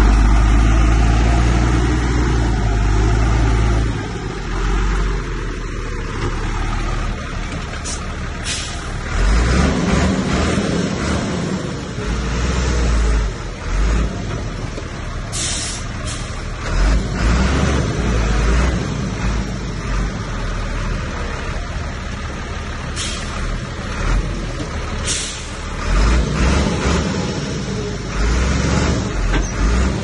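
Heavy diesel earthmoving machinery at work, most likely a bulldozer's engine, its note swelling and dropping repeatedly under changing load. Several short high-pitched bursts cut through it.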